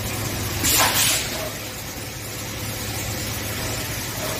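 Automatic multi-head hemming and sewing line for safety net or tarpaulin running with a steady mechanical hum, with a short hiss about a second in.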